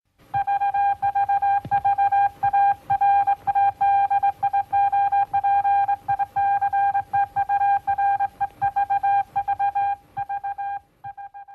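Morse code beeps: a single steady pitch keyed on and off in an irregular run of short and long beeps, over a low hum. The beeps grow fainter and stop just before the end.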